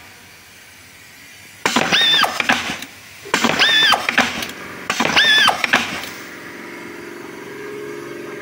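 URBAN FAS 330 machine working through three repeated strokes about a second and a half apart, each with a high squealing whine that rises, holds and falls away. From about six seconds in it settles to a steady running hum.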